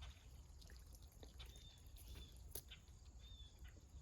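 Near silence: faint outdoor ambience with a low rumble, a few faint short high chirps and a couple of soft clicks.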